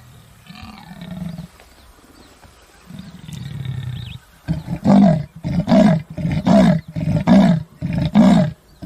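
Leopard giving its sawing roar: soft, low rasping grunts at first, then after about four seconds a loud rhythmic run of about six hoarse strokes, each a little under a second apart, like a saw cutting.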